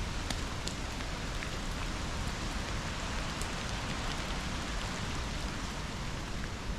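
Steady rain with scattered single drops ticking, over a constant rush of water.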